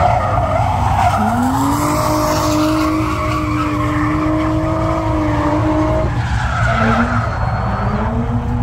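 Drift cars on the track with tyres screeching: one engine revs up about a second in and holds a steady high note for about five seconds, then another engine note climbs near the end.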